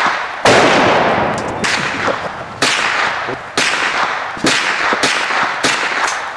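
Gunshots fired in quick succession, about seven in six seconds with the later ones coming faster. Each sharp bang trails off in a long echo.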